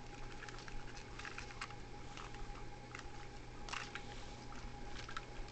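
Light handling noise of a plastic Beyblade launcher and grip: scattered small clicks and rubs, over a faint steady hum.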